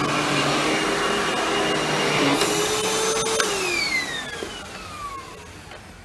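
Hoover WindTunnel Anniversary Edition bagless upright vacuum running. A couple of seconds in, a hissing rush of air starts as the vacuum is stood upright and its diverter valve switches the suction to the hose. About a second later the motor is switched off and winds down with a falling whine.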